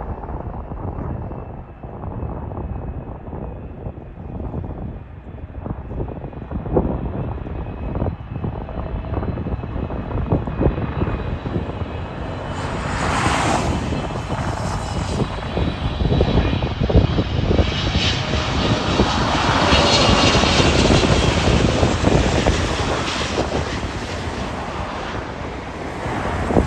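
Korean Air Boeing 777-300ER's two GE90 turbofan engines on final approach, a steady jet noise with a faint high whine. It swells as the airliner comes close, peaks about two thirds of the way through, then eases as it descends to the runway.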